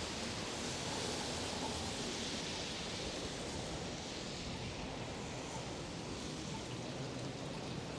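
Pouring rain falling, a steady hiss.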